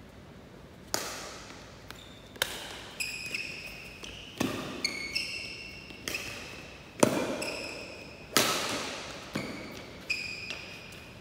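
Badminton rally: a dozen or so sharp racket strikes on the shuttlecock, irregularly spaced and echoing in a large hall, the loudest about seven seconds in, with brief high squeaks of court shoes on the floor between them.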